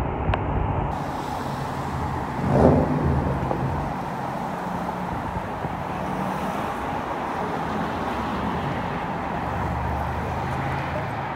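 Road traffic on a multi-lane city street: a steady wash of cars driving past, with engine hum rising as vehicles go by and a brief louder swell about two and a half seconds in.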